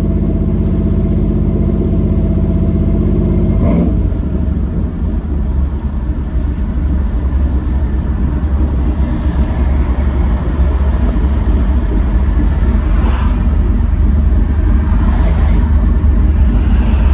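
LS V8 engine swapped into a Ford Lightning pickup, heard from inside the cab while driving: a steady engine note that changes abruptly about four seconds in, then a low exhaust rumble that builds gradually as the truck pulls.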